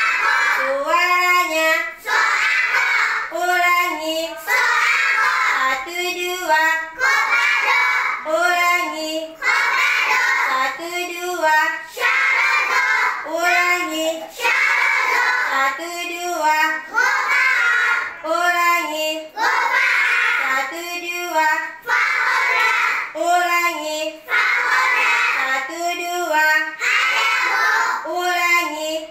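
A class of young children chanting Arabic letters aloud together as they are pointed out on a chart, a rhythmic sing-song recitation of about one group a second without a break.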